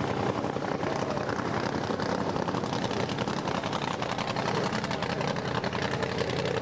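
Nostalgia drag-racing car engines running, a steady, dense engine noise.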